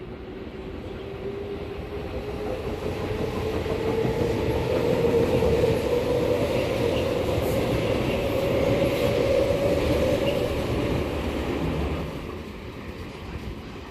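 Tobu Skytree Line train passing slowly, with a motor whine that rises in pitch over the first few seconds over the rumble of the cars. It is loudest midway and drops off about twelve seconds in.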